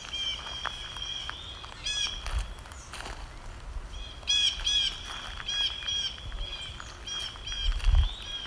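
Wild birds chirping in a series of short repeated calls, thickest about two seconds in and again from about four to six seconds in, with low thumps, the loudest near the end.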